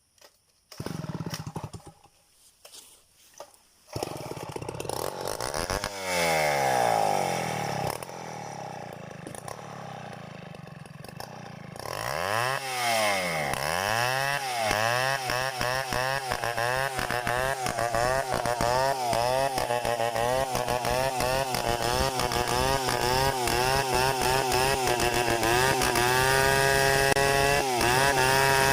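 A two-stroke chainsaw starts: two short bursts, then the engine catches and runs about four seconds in. It is then revved up and down over and over, about twice a second, and near the end held at steady high revs with one brief dip.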